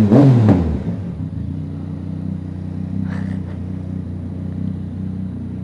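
Yamaha MT-07's parallel-twin engine given a short rev at the start, then idling steadily.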